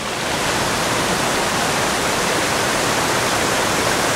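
Steady rush of falling water, a dense even roar that swells a little in the first half second and then holds.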